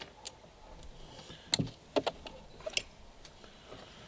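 Light clicks and taps of small plastic and metal linkage parts as hands work the throttle linkage free in an RC boat's hull: a handful of sharp separate clicks, loudest about halfway through.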